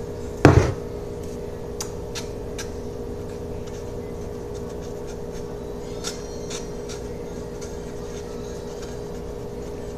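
A single sharp knock about half a second in, then scattered light clicks and taps from objects handled while slime ingredients are mixed, over a steady low hum.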